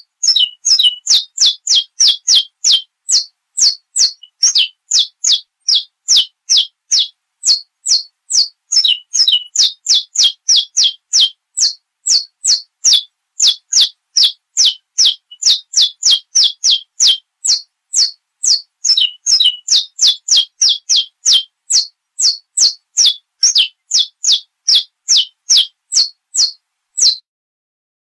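Saffron finch (canário-da-terra) singing a long run of sharp, high notes, each one falling quickly in pitch, at about two a second, stopping near the end.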